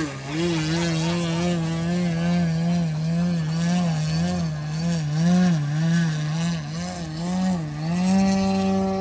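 Dualsky GA8000 electric motor and 28-inch Xoar propeller of a 110-inch Extreme Flight Yak 54 hovering nose-up, the propeller hum wavering up and down in pitch with the throttle. Near the end the pitch rises and holds steady as power comes up.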